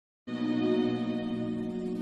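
Background music: soft, sustained ambient chords that begin about a quarter of a second in, after a brief silence at a cut.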